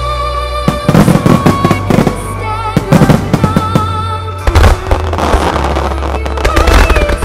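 Fireworks shells bursting in rapid clusters over loud music, as in a music starmine finale where the shells are fired in time with the track. The bangs come in bunches about a second in, around three seconds, about four and a half seconds and near the end, with the music sustaining in between.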